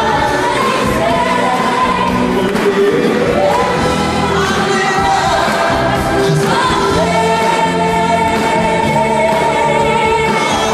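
Live rock-musical number: several voices singing together in chorus over the band, holding long notes with a rising slide in pitch about three seconds in.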